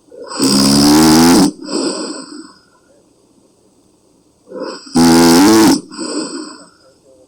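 A woman snoring heavily in her sleep: two loud, pitched snores about four and a half seconds apart.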